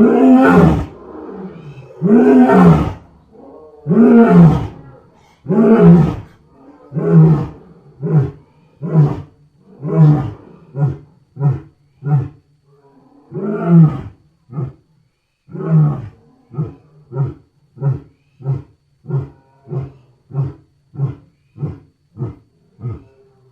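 African lion roaring bout: several long, full roars, then a run of short roars that get briefer and closer together. About halfway through, a second long roar starts another run of short roars, about three every two seconds near the end.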